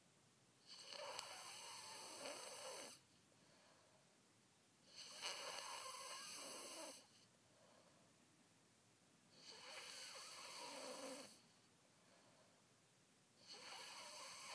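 A young child snoring in sleep: four long, noisy breaths about four seconds apart, each lasting about two seconds, with quiet between. The snoring comes from an airway obstructed by enlarged tonsils and adenoids, the cause of his sleep apnea.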